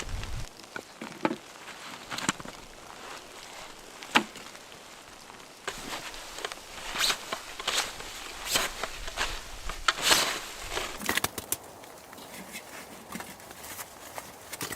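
Irregular knocks, clicks and rustles, as of someone moving about and handling gear, busiest in the middle of the stretch.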